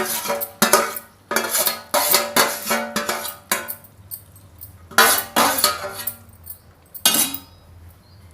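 Metal spoon scraping and knocking against steel cookware as mashed fenugreek dal is transferred into the tempering pan. The clatter comes in several bursts with short quiet gaps between them.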